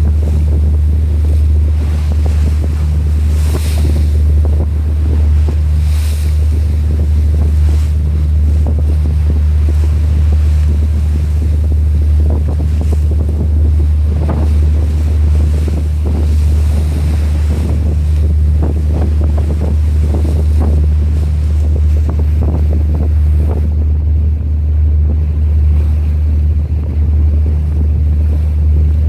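Large ship's engine giving a steady low drone, with wind buffeting the microphone and rushing water over it.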